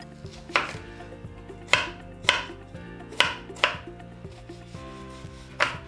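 A kitchen knife cutting an onion on a plastic chopping board: about six separate knocks of the blade on the board, unevenly spaced.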